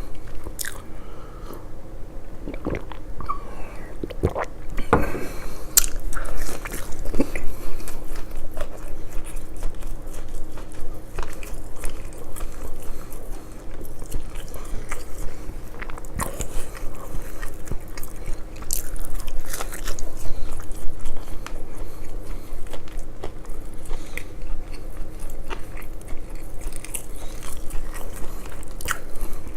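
Close-miked eating of McDonald's fried fish and fries: steady chewing with irregular crunches, clicks and wet mouth sounds, and a few sharper crunchy bites a few seconds in.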